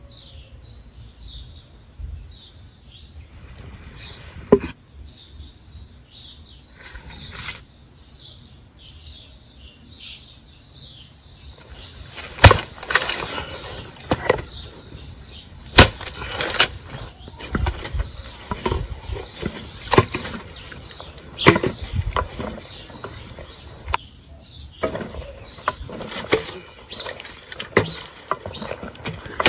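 Small birds chirping. About twelve seconds in, an axe blade starts chopping into a dry wood slab, with irregular sharp strikes and the crack of splitting wood.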